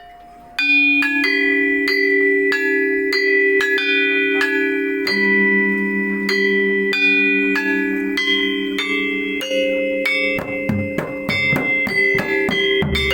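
Balinese gamelan gong ensemble playing: bronze metallophones strike a melody of long-ringing notes, and drums join in about ten seconds in.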